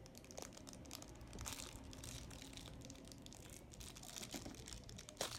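Faint crinkling and small clicks of toys being handled, with one sharper click near the end.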